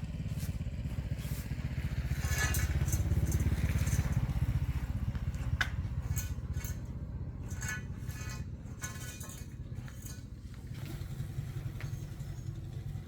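A small engine running steadily at low speed, briefly louder a couple of seconds in, with scattered clicks and clinks over it.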